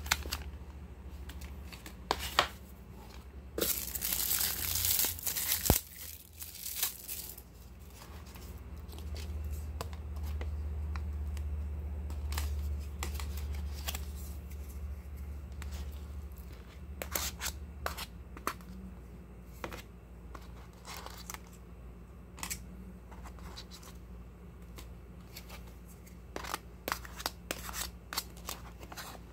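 A plastic food wrapper crinkling loudly for a few seconds, then scattered light clicks and scrapes of a spoon against plastic takeaway containers, over a low steady hum.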